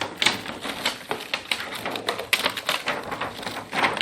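Small plastic toy pieces clicking and clattering against each other and a plastic toy refrigerator as they are handled and fall, in a quick irregular run of taps.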